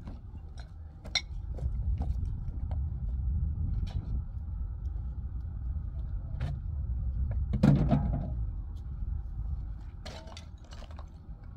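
Low rumble of wind on the microphone, with scattered light clinks and knocks of stones and blocks being handled, and one louder knock and scrape about eight seconds in.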